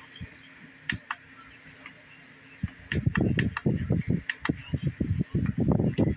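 A few sharp, plastic-sounding clicks, like buttons pressed on a battery charger-tester. From about three seconds in, the clicks continue over irregular rumbling handling noise.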